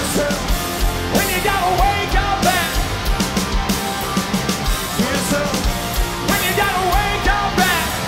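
Live hard rock band playing loud with distorted electric guitars and bass over a steady driving drum beat, about two hits a second. Held, wavering high notes ride over the band twice.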